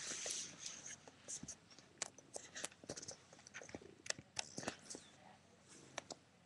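Faint handling noise from the recording device being moved: a short rustle at the start, then scattered small clicks and knocks.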